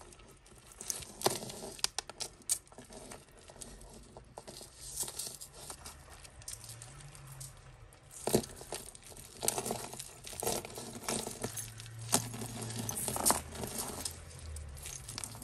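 Costume jewellery being handled and sorted: small metal and glass pieces clicking and clinking together at irregular moments, with the crinkle of a plastic bag as pieces are picked out of it.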